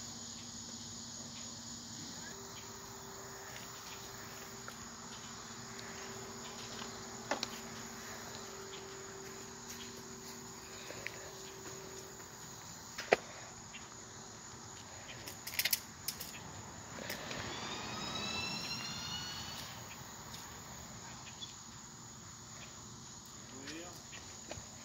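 Steady high insect buzz, likely crickets, with a few light clicks and one sharp knock a little past halfway, from hands working in a car's engine bay.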